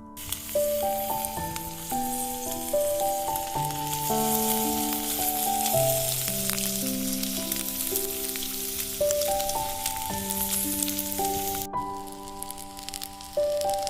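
Bacon frying: a dense sizzle with fine crackles that cuts off abruptly about twelve seconds in. Instrumental music with held notes plays throughout.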